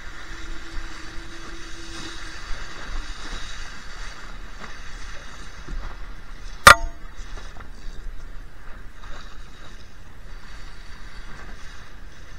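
Steady rush of wind and water aboard a Laser 2 sailing dinghy moving in strong wind, with one sharp, loud knock about halfway through.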